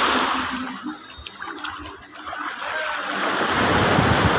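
Surf washing up the beach: a rushing wash of waves that fades about halfway through and swells again near the end.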